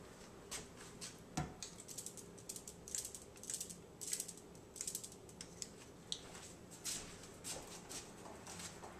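Spoon scraping and tapping against the inside of a metal soup can as the last of the condensed cream of chicken soup is worked out into the skillet: a run of short, irregular clicks and scrapes, with one duller knock about a second and a half in.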